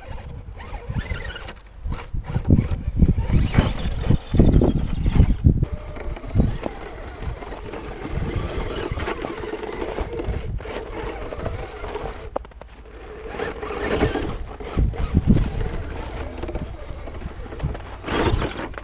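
Axial SCX10 RC crawler truck's electric motor and geared drivetrain whining as it drives, the pitch rising and falling with the throttle. Wind gusts buffet the microphone.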